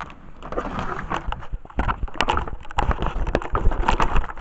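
Close handling noise: irregular rustling, clicks and knocks as items and packaging are moved about right next to the microphone.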